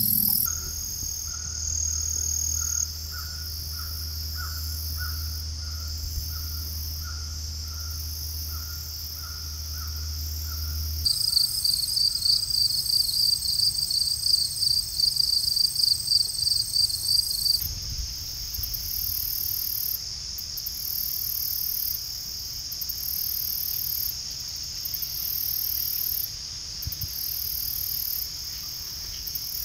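Chorus of crickets and other insects: a steady high trilling, with loud rapid chirping pulses for several seconds near the middle and a rhythmic, even pulsed buzz later on. A low rumble and a faint, regularly repeated call sit under the first third.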